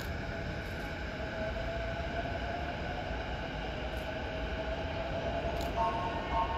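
E233-0 series electric train running slowly into a station platform: a steady low rumble of the approaching train, with a faint steady whine from its motors joining near the end.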